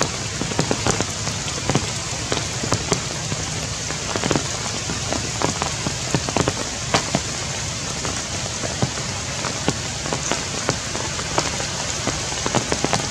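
Heavy rain falling steadily on tree leaves, with many large drops landing close by as sharp, irregular taps.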